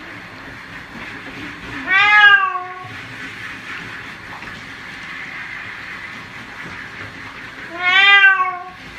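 Domestic cat meowing twice while being bathed, two long meows about six seconds apart, each rising and then falling slightly in pitch, over a steady hiss.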